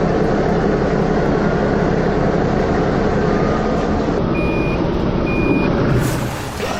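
Heavy construction-vehicle engine running loudly and steadily, with two short high reversing beeps about a second apart past the middle; the rumble eases off near the end.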